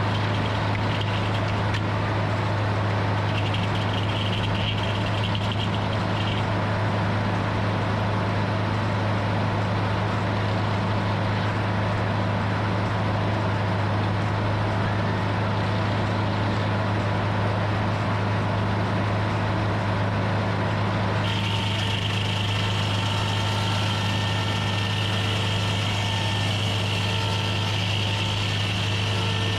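Hydraulic sawmill's engine running steadily with a constant low hum. A higher whine strengthens suddenly about three quarters of the way through.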